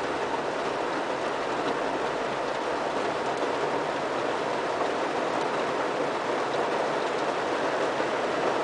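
Steady rain falling on a car's roof and windows, heard from inside the cabin as an even hiss.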